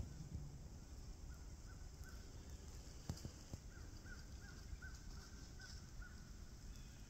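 A distant bird calling faintly, a run of about a dozen short, repeated calls with a pause midway. A few faint clicks come about three seconds in, over quiet woodland background with faint insects.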